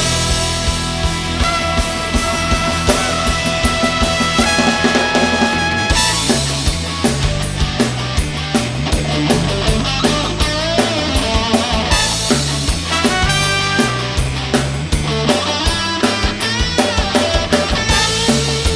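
A band playing an instrumental break, with no singing. A drum kit keeps a steady beat under a walking bass line while a lead instrument plays long held melody notes.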